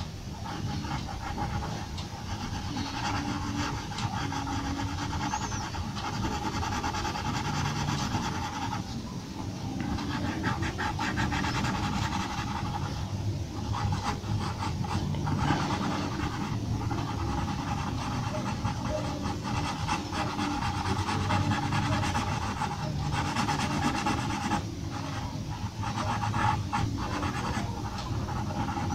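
Graphite pencil scratching on paper in quick short shading strokes, pausing briefly now and then, over a steady background hum.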